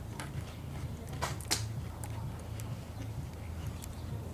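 People chewing Oreo cookies, with a few short sharp clicks, the loudest about a second and a half in, over a steady low hum of room noise.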